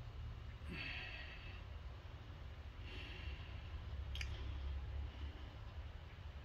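Quiet room tone with a steady low hum, two soft breath-like hisses about a second in and about three seconds in, and a single sharp click a little after four seconds.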